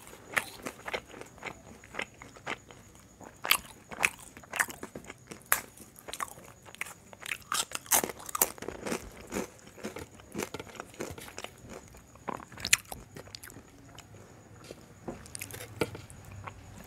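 Close-miked biting and chewing of crisp papad: a run of sharp, irregular crunches and crackles that thin out and grow softer near the end.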